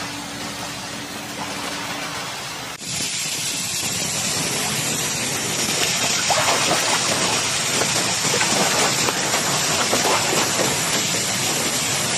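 Rushing, spraying water with a steady hiss, growing louder after a sudden change about three seconds in.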